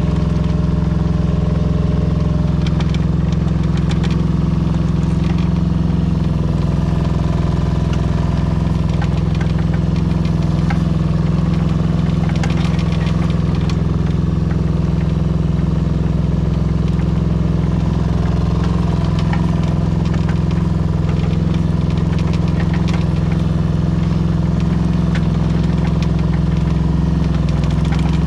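Daewoo Solar 010 mini excavator's small Yanmar diesel engine running steadily while the machine tracks along, with scattered light clicks and rattles.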